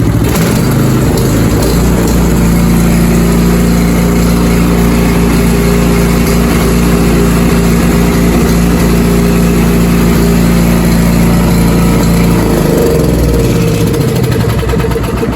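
Briggs & Stratton Polar Force 1450 Series 305cc single-cylinder engine on an Ariens Deluxe 30 snowblower running steadily after a fresh start on new oil and cleaned carburettor; about twelve seconds in its speed drops to a lower, settled run.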